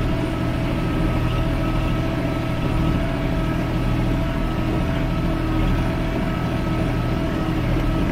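Kubota L3560 compact tractor's diesel engine running at a steady pitch as the tractor drives slowly, heard from the operator's seat.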